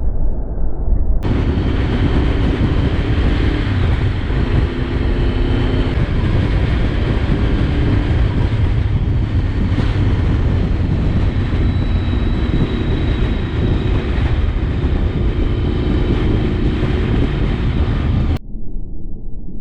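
Wind rushing and buffeting over a helmet-mounted camera while a Honda VFR750's V4 engine runs underneath, its pitch stepping up and down with speed. It sounds muffled for about the first second and again near the end.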